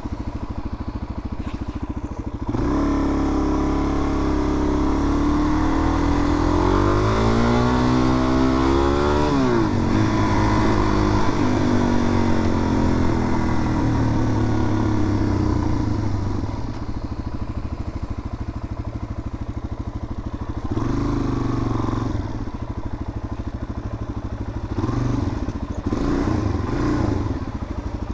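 Suzuki DR-Z400's single-cylinder four-stroke engine running as the bike is ridden. The revs climb steadily for a few seconds, drop sharply near the ten-second mark, then settle lower and steadier, with brief rises again later on.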